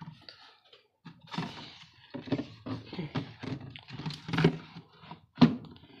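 Rapid, irregular clicks and knocks of things being handled in a refrigerator, with one sharp, louder knock near the end.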